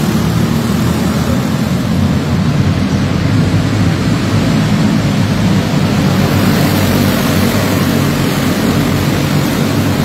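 A pack of racing go-karts running flat out together, their small engines blending into one loud, steady drone.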